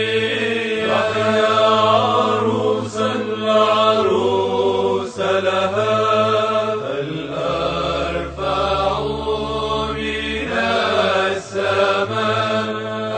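Chanted singing: voices hold long notes and move slowly between them over a steady low drone.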